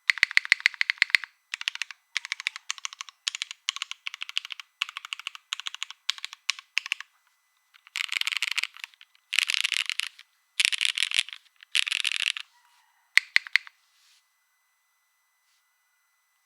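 Typing on a Saevus Cor65 gasket-mounted, plateless keyboard with lubed Cherry MX Black linear switches and GMK keycaps. Runs of clacking keystrokes come first, then four dense bursts of rapid key presses and one short last burst, after which the typing stops.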